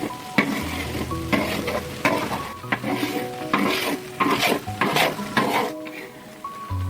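A spatula scraping and stirring food as it fries in a hot iron wok, with a sizzle under repeated strokes about twice a second that ease off near the end.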